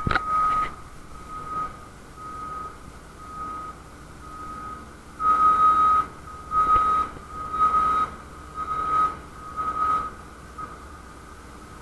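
A heavy vehicle's reversing alarm beeping about once a second in a single steady tone, stopping near the end. A sharp knock comes right at the start, and bursts of rushing noise rise over the beeps in the second half.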